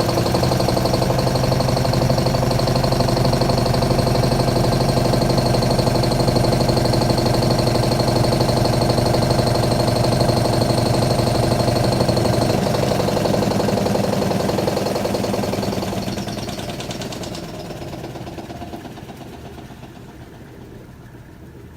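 Panda PAN56MGW2 portable washing machine spinning its drum at speed, a steady motor hum with a high whine, then winding down and fading out over the last several seconds: the spin that pulls the last of the wash water out before the rinse.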